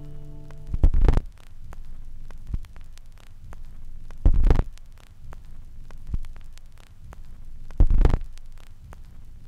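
Static crackle over a steady electrical hum, with three heavy low thumps evenly spaced about three and a half seconds apart: a glitch-style sound effect.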